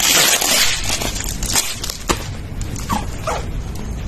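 Plastic wrapping and tape on a cardboard box rustling and crinkling, loudest in the first second, followed by scattered clicks as scissors go to work on the tape. Two short falling squeaks about three seconds in.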